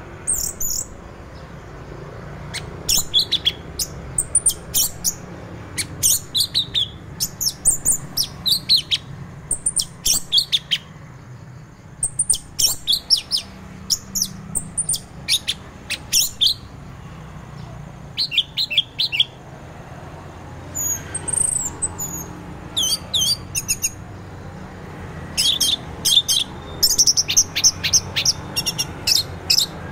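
Orange-headed thrush singing: phrases of quick, high, warbling notes about a second or two long, repeated with short pauses and a longer lull about two-thirds of the way in. A faint steady low hum runs underneath.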